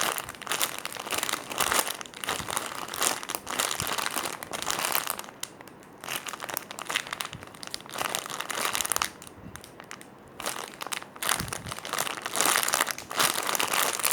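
Crinkling and rustling from a foam squishy toy being handled and squeezed, coming in irregular clusters with a couple of short quieter pauses.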